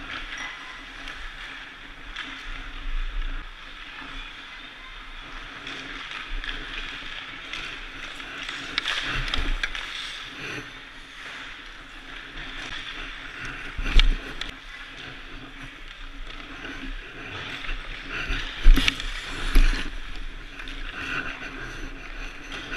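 Ice rink sounds at close range: skate blades scraping and hissing on the ice, with sharp knocks of pucks striking sticks, goalie pads and boards. The loudest knock comes a little past halfway, and two more come close together a few seconds later.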